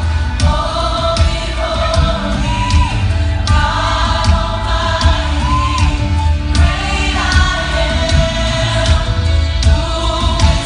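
Christian worship song playing: singing over a steady beat with heavy bass.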